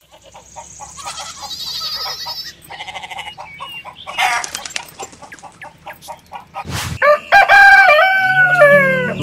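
Chickens clucking in quick short calls with small birds chirping high above, then a rooster crowing once, loud, over the last two seconds, its pitch stepping and dropping at the end.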